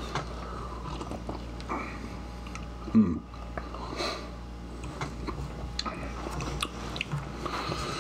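People sipping and tasting beer from small glasses: quiet slurps, sniffs and mouth sounds, with one short, louder sound about three seconds in.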